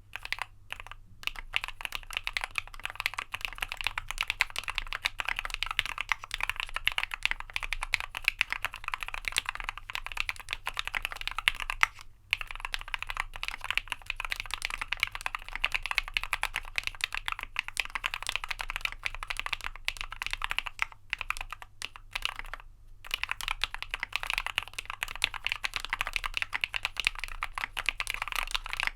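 Keychron Q1 mechanical keyboard with lubed Tealios linear switches, a steel plate, PE foam mod and PBT keycaps, typed on quickly and continuously as a typing test. Brief pauses come about twelve seconds in and again near twenty-three seconds.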